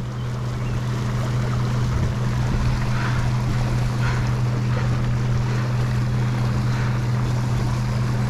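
Water rushing and churning from a warm-water discharge outflow, steady throughout, with a constant low hum underneath.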